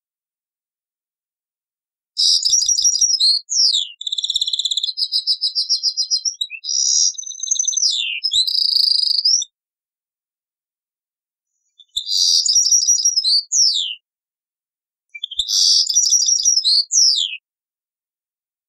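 Algerian goldfinch (European goldfinch) singing: a long phrase of fast trills and quick downward-sweeping notes, then after a pause two shorter phrases of the same kind.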